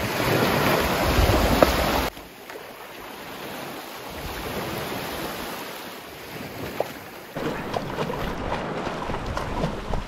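Small waves washing onto a sandy beach with wind buffeting the microphone, then water splashing around a person wading in and swimming. The sound changes abruptly, dropping about two seconds in and coming back up about two-thirds of the way through.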